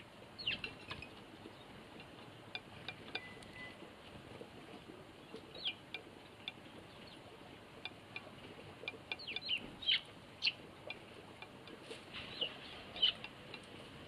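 Eurasian tree sparrows chirping: scattered short, high chirps, bunched into quick clusters about half a second in, around the middle, and near the end.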